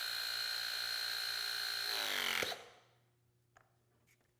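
The Greenlee GRE-6 battery hydraulic tool's motor and pump run with a steady high whine. About two seconds in the pitch sags as the tool works harder. It ends in a sharp snap and the tool stops, consistent with the hard-metal cutting head shearing through ACSR cable.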